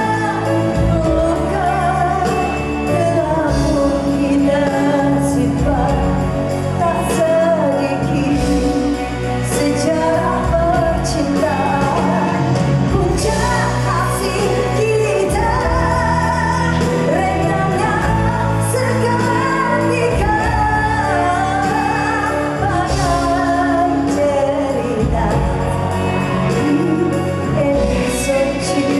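A female singer singing live into a microphone over band accompaniment, a continuous melodic vocal line amplified through the hall's sound system.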